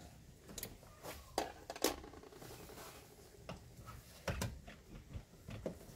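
A coolant hose and its plastic clip-on connector being worked by hand onto a car radiator: a string of sharp clicks and light knocks at irregular intervals.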